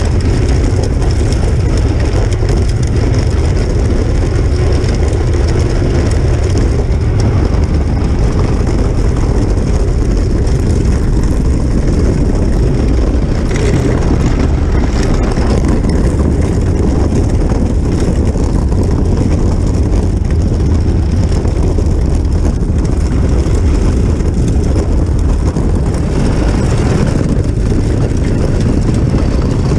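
Continuous loud rumble and rattle of a small toy car rolling over a gravel drive while it is towed, heard through a camera mounted on its hood.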